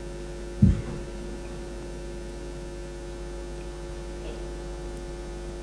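Steady electrical mains hum through the hall's sound system, with a single dull thump about two-thirds of a second in from a handheld microphone being handled as it is passed to an audience member.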